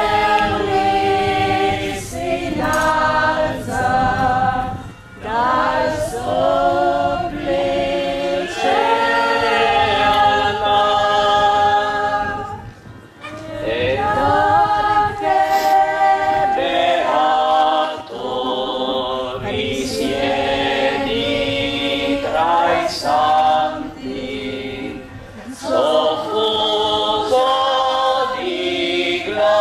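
Church choir singing a liturgical hymn in sung phrases, with a short break about 13 seconds in.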